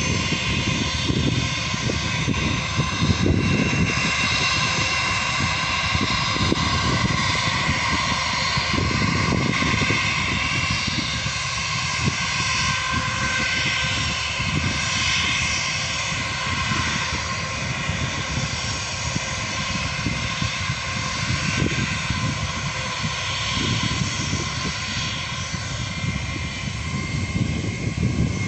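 Twin jet engines of a Thai Smile Airbus A320 taxiing at low thrust: a steady whine with several held tones over a low, uneven rumble.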